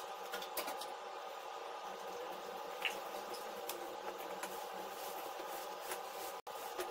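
A steady hum with scattered light clicks and rustles of bed linen being handled; the sound cuts out for an instant near the end.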